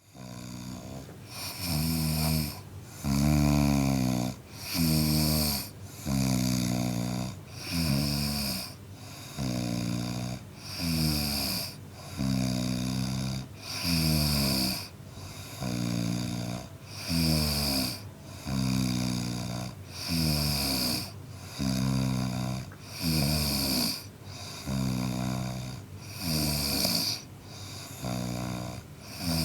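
A man snoring in a steady rhythm, with a rattling snore about every one and a half seconds and breathy hiss around each one.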